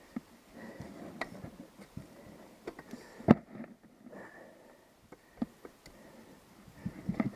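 Scattered light clicks and knocks at irregular intervals, with one sharper knock about three seconds in.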